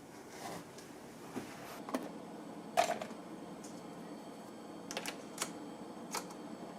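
Scattered light clicks and taps of tableware, such as chopsticks and spoons against bowls, during a meal. There are about seven separate clicks over a faint background.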